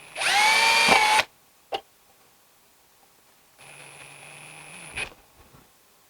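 Handheld electric drill spinning up to speed, its pitch rising then holding, for about a second before stopping; a few seconds later it runs again more quietly at low speed for just over a second and cuts off with a click. The owner suspects the drill has a problem.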